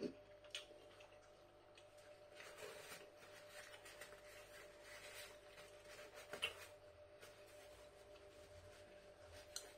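Near silence: faint rustling of a paper napkin being handled, with a few soft clicks over a low steady hum.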